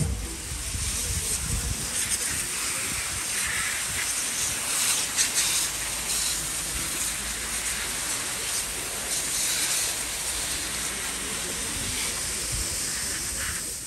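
Steady hissing water spray from garden-hose nozzles washing mud off mountain bikes.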